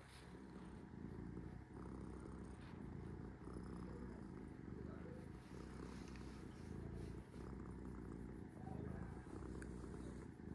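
Domestic cat purring steadily while being scratched under the chin, a low rumble with brief dips every second or two.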